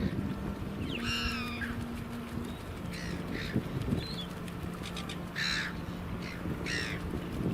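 Silver gulls calling: harsh squawking cries, one longer call about a second in followed by a string of short ones, over a steady low hum.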